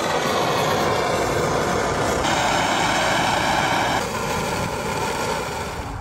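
Steady roaring rush of strong wind buffeting the microphone, its tone shifting abruptly about two and four seconds in.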